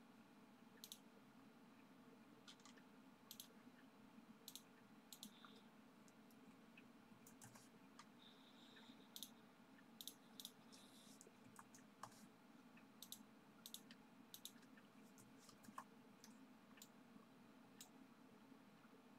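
Faint, irregular computer mouse clicks, a couple of dozen spread unevenly, over a low steady hum of room tone.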